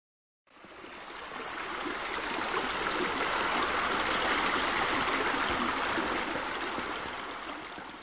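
Steady rush of water pouring off a pool waterfall, swelling in over the first few seconds and fading away near the end.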